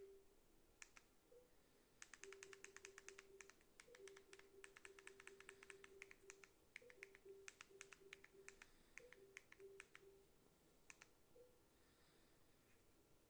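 Quiet, rapid clicking of TV remote-control buttons as the highlight is stepped across an on-screen keyboard: single clicks and fast runs of several a second. A faint low tone comes and goes under the runs.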